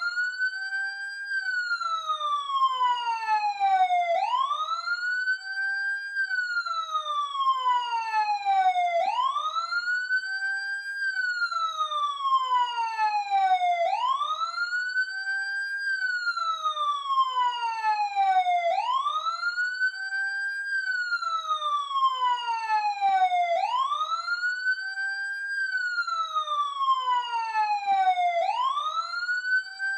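Emergency vehicle siren, close up, sounding a wail: each cycle climbs quickly in pitch, holds briefly at the top, then falls slowly, repeating about every five seconds.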